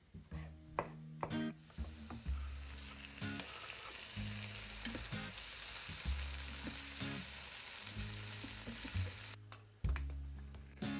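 A knife chopping tomato on a wooden board for the first two seconds, then diced onion, bell pepper and tomato sizzling in a frying pan as they are stirred with a wooden spatula. The sizzle cuts off near the end.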